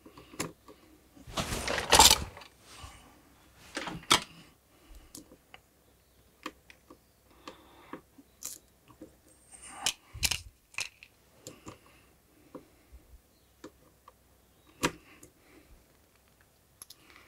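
Small handling noises as a screw and fittings are worked into the front of a desoldering station's case by hand: a louder scrape about two seconds in, then scattered light clicks and taps.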